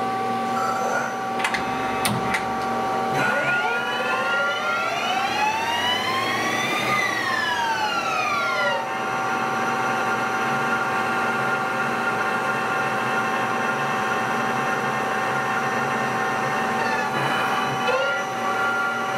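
Bridgeport Romi two-axis CNC lathe running a program just after cycle start, over a steady machine hum. A few sharp clicks come early on. A whine then rises for about four seconds and falls away again, and more clicks follow near the end.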